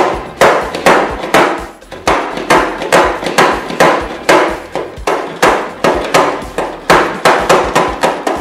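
Plastic arms of a Play-Doh Can-Heads Hulk Smashdown toy slamming down again and again as the can on its head is pressed, a hard smack about twice a second.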